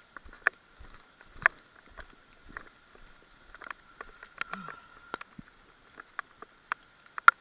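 Footsteps outdoors, a soft low thud about every half second, among irregular sharp taps and clicks, over a faint steady high tone.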